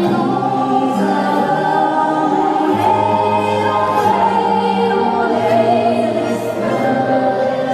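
Handsaw played as a musical saw with a bow: a sustained, voice-like melody that wavers in pitch, over an accompaniment of held low notes.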